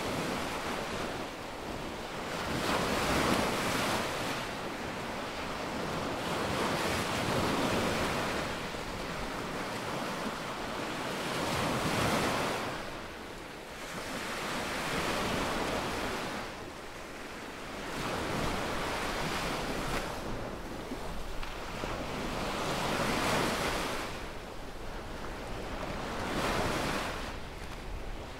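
Small waves breaking and washing up a sandy beach. The surf hiss swells and fades every three to four seconds as each wave runs up and drains back.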